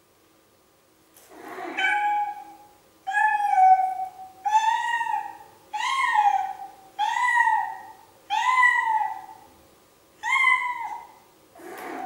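Domestic cat meowing seven times in a row, each call about a second long, rising then falling in pitch.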